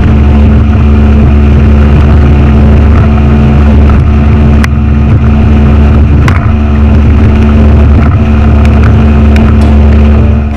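Boat engine running steadily under way, very loud from on board, a deep even drone with a steady hum above it.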